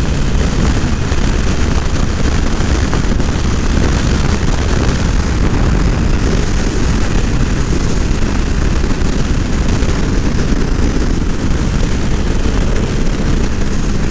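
Steady rush of wind over the microphone of a motorcycle riding at speed, with the low drone of engine and road noise underneath.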